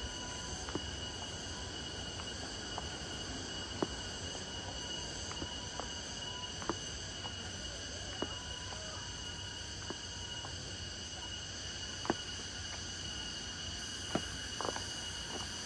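Insects droning steadily in the surrounding forest: a constant high-pitched, multi-toned buzz. A few faint clicks sound here and there.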